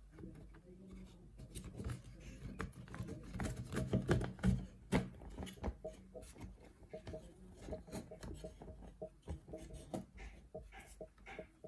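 Small knocks, taps and rubbing as a wooden hive frame and a wired beeswax foundation sheet are handled and set on a wooden tabletop, with an irregular run of short, sharp clicks.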